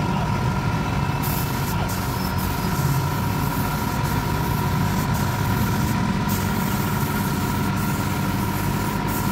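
Air compressor running steadily while a paint spray gun on an air hose hisses as it sprays a wooden chair. The spray hiss comes on about a second in and cuts out briefly a few times as the trigger is released.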